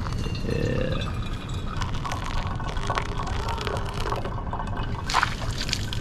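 Hot water poured from a pot into a pour-over coffee filter over a mug, a steady trickling pour whose pitch rises as it goes on. A sharp knock sounds about five seconds in.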